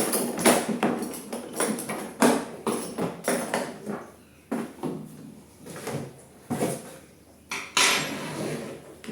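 Irregular clicks, knocks and clinks of a rotary hammer kit and its parts being handled, with a longer scrape about eight seconds in.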